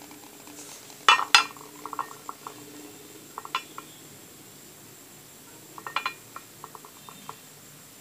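A white serving dish knocking and clinking against a steel karai and a ceramic platter as chopped leaves are emptied out and the dish is set down: two sharp knocks about a second in, then scattered lighter clinks and taps.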